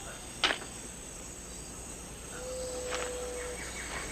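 Rainforest ambience of insects, a steady high-pitched chirring. A single sharp click comes about half a second in, and a faint, held low note runs for about a second from around two and a half seconds in.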